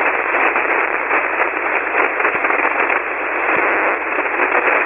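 Steady hiss of band noise from a shortwave ham radio receiver on 40-metre single sideband, with no voice, squeezed into the narrow voice passband.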